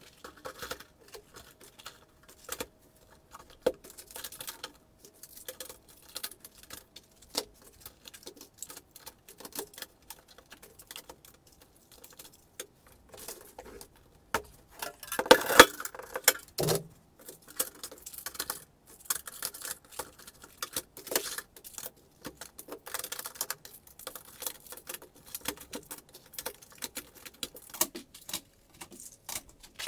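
Cardboard boxes of .22 rimfire cartridges being handled and packed into a steel ammo can: many small irregular clicks, taps and rattles as the boxes are set down, slid into place against the can and the cartridges shift inside them, with a louder spell of handling about halfway through.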